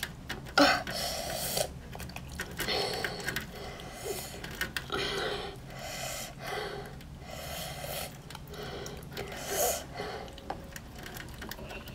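A person's noisy breathing and mouth sounds close to the microphone, coming in short bursts about once a second.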